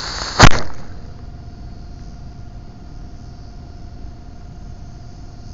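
A single sharp, very loud pop about half a second in, heard through a model rocket's onboard camera lying in grass: the Estes rocket motor's ejection charge firing. After it a steady low hiss, with a faint thin steady tone.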